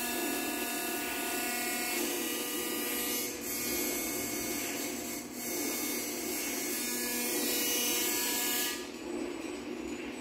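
Amplified buzzing from a small handheld electric device used as an experimental sound source: a steady, noisy hiss with several held tones above it. Most of the hiss cuts off suddenly near the end, leaving a lower hum.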